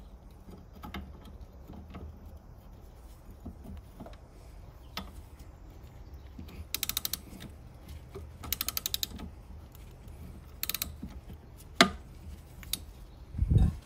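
Hand socket ratchet clicking in three short runs of rapid clicks as the anti-roll bar link nut is worked loose, the stud held on a T40 Torx bit. A sharp metal knock comes a little before the end, followed by a dull thump.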